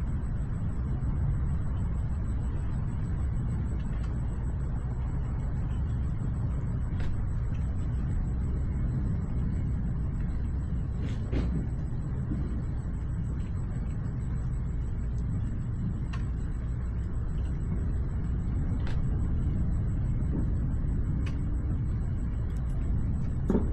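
Steady low rumble of outdoor night-time thunderstorm ambience, with faint sharp ticks every few seconds.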